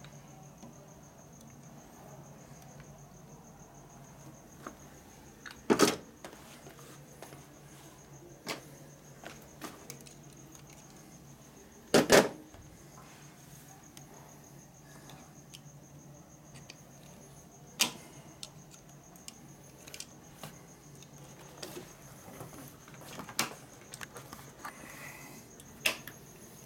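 Small metal parts and hand tools clinking as a motorcycle brake caliper is taken apart by hand: irregular light clicks and a few sharper clinks, the loudest about six and twelve seconds in. A steady high-pitched whine and a low hum run underneath.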